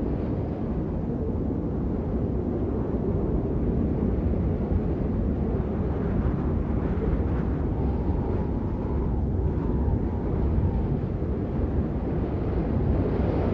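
Blizzard wind blowing hard in a steady low rumble. A faint, wavering howl sounds about two-thirds of the way in, and the wind gusts up again near the end.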